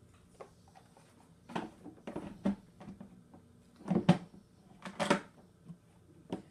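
Hollow plastic knocks and clunks of a Bissell Big Green carpet cleaner's water tank being handled and seated onto the machine's body. The loudest, a quick pair of knocks, comes about four seconds in.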